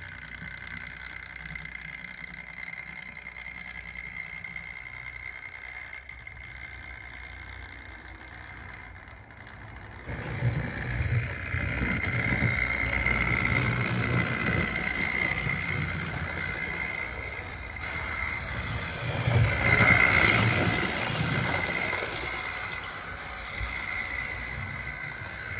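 OO gauge model of a Bulleid 'Spam Can' Pacific with a replacement motor, running round the layout with coaches: a steady, a little noisy electric-motor whine over wheels rumbling on the track. It grows much louder about ten seconds in, is loudest a little past the middle, then eases off.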